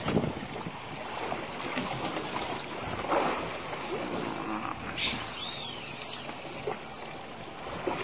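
Wind and water lapping around a small boat at sea, with a knock right at the start and a brief high squeal that rises and falls about five seconds in.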